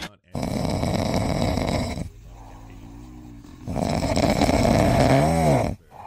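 Sleeping tabby cat snoring: two long rasping snores about two seconds each, with a quieter, wavering tone on the breath between them.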